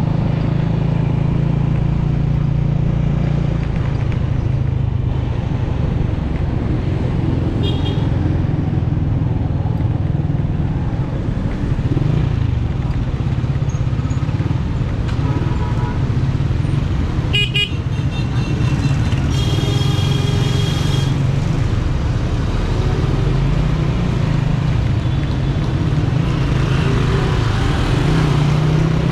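Motorcycle engine running steadily while riding through traffic, with other vehicles' horns honking several times, the longest blast lasting about two seconds around twenty seconds in.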